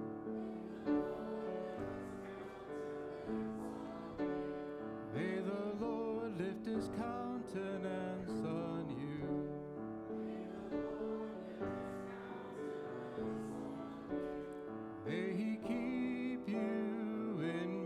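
Church music: a piano playing, with a voice singing over it.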